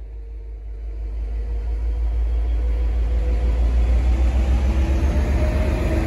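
V/Line N class diesel locomotive's EMD 12-645 two-stroke V12 engine working as it pulls away past close by: a deep, pulsing rumble that grows louder over the first couple of seconds.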